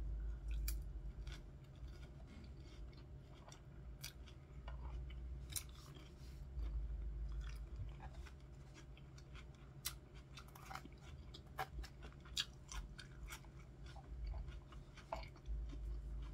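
Close-miked chewing of a crunchy iceberg-lettuce salad with chicken and bacon bits: irregular crisp crunches and small wet clicks of the mouth, scattered throughout.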